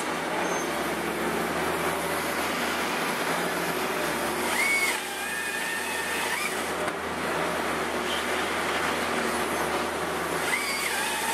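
Case wheeled excavator's diesel engine and hydraulics running steadily while its grapple saw head cuts through a log. A high whine jumps up about four and a half seconds in, settles lower for about two seconds while cutting, then rises briefly and stops; a second cut starts near the end.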